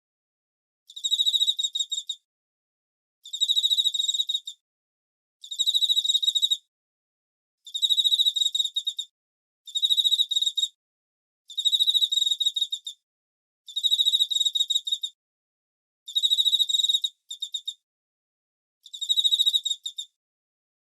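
A cricket chirping in pulsed, high trills of about a second each, repeating roughly every two seconds with complete silence between them, and a short extra trill about two-thirds of the way through.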